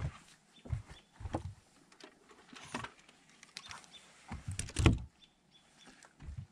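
Scattered knocks and clunks on a fishing boat's deck as an angler handles a freshly caught fish, with one heavier thump about five seconds in.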